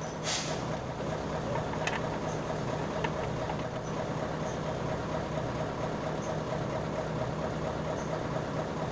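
An engine idling steadily, with a faint click or two from small metal parts being handled.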